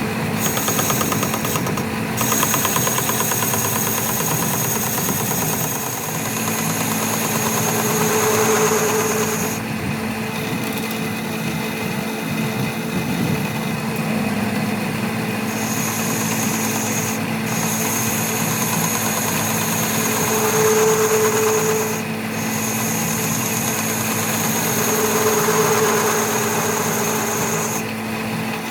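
A machine running steadily with a constant hum. A high whine cuts out and comes back several times, and a mid-pitched tone rises three times, about eight seconds in, about twenty seconds in and near the end.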